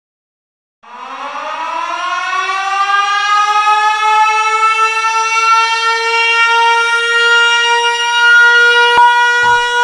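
A siren winds up, its pitch rising over the first few seconds and then holding as one steady wail. Near the end a sharp hit sounds and the first deep bass beat comes in under it.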